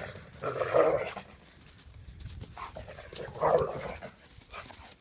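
A greyhound and another dog play-fighting, with two short rough vocal sounds from the dogs, one about half a second in and another about three and a half seconds in.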